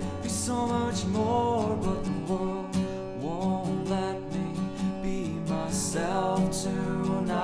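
Background music: a song with guitar and drums.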